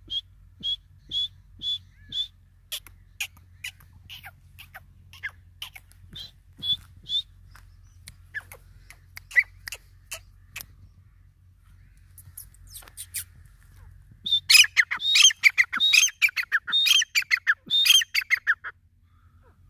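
Grey francolin calling. It opens with a run of short, evenly spaced high notes, followed by scattered single notes. After a quieter stretch comes a loud, rapid burst of repeated calls lasting about four seconds.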